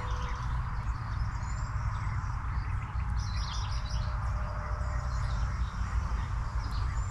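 Small birds chirping now and then in short, high calls, with a cluster of chirps about three seconds in, over a steady low rumble.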